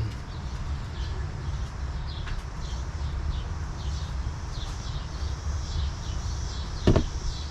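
Birds chirping over a steady low rumble, with one sharp knock about seven seconds in.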